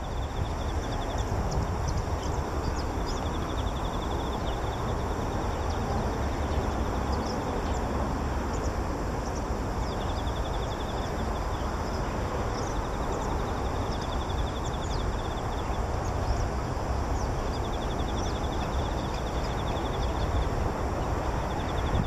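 Bull-headed shrike singing a quiet, muttered run of small-bird-like chirps, imitating other small birds. The faint high chirps and a few brief rapid trills come and go over a steady, louder low background rumble.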